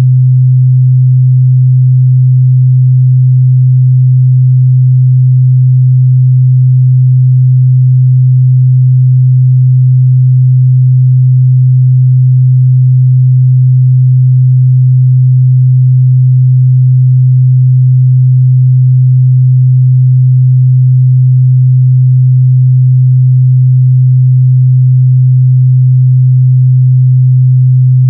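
A steady, unbroken 128 Hz sine-wave test tone, a single low hum held at one pitch and one loud level.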